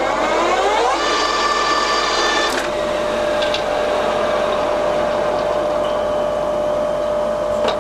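Colchester Triumph 2000 gear-head lathe spindle spinning up to 840 rpm: the headstock gear whine rises over the first second and then runs steady. About two and a half seconds in, a clunk marks the spindle being knocked off, and the whine winds down. A steady motor hum continues underneath.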